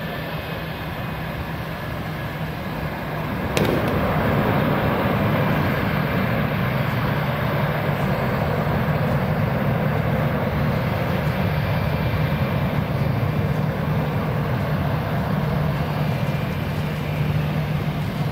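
Jet airliner engines running at taxi power: a steady rumble with a low hum, which jumps louder about three and a half seconds in as a rear-engined JAS McDonnell Douglas MD-90 taxis close by.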